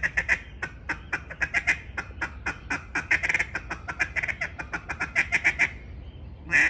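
Lady May hybrid mellow duck call blown in a feeding call: a fast, uneven chatter of short clucking notes for about six seconds, then a single longer, louder note near the end.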